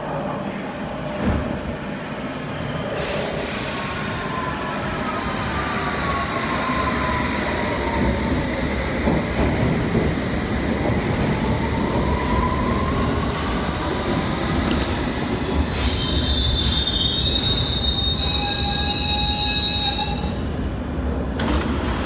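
London Underground S Stock train running into the platform, its rumble growing louder, with motor whines gliding down and then up in pitch. About two-thirds of the way in, a high-pitched squeal of several tones rings out for about five seconds as the train brakes to a stop.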